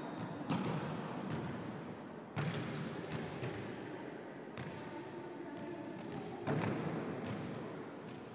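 Volleyballs being spiked and smacking the hardwood gym floor, with an echo after each impact: three loud smacks, about half a second in, near two and a half seconds and near six and a half seconds, with lighter taps between.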